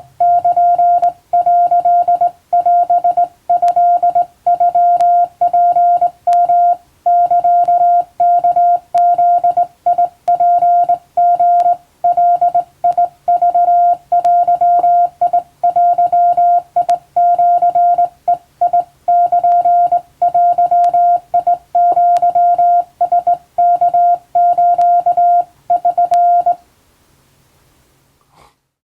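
Hand-keyed Japanese (wabun) Morse code: a single steady mid-pitched tone switched on and off in dots and dashes at an even sending pace, with a few faint clicks, until the sending stops near the end.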